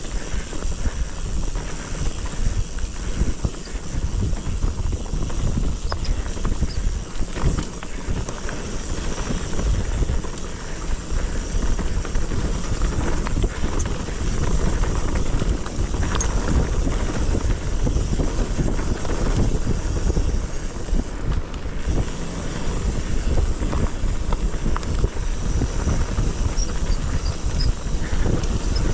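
Wind buffeting the camera microphone over a continuous rumble and crackle of riding down rough, steep ground.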